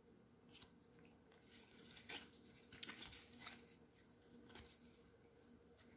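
Faint rustles and a few light clicks of printed trading cards being handled and slid against each other in the hand, over a low steady hum.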